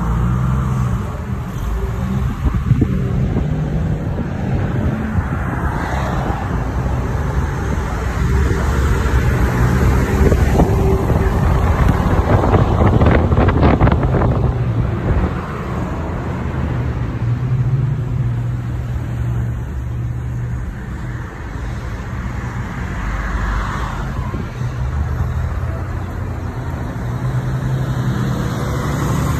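Jeeps driving in convoy: engines running with tyre and wind noise, swelling louder for several seconds in the middle.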